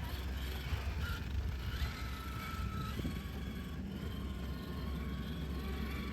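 Axial SCX6 RC rock crawler's electric motor and drivetrain whining as it crawls over dirt, the pitch rising briefly with throttle about one and two seconds in, over a steady low rumble.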